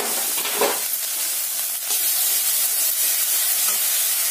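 Ground masala paste sizzling in hot oil in a kadai, stirred with a metal spatula. There is a steady hiss, with two short knocks against the pan near the start.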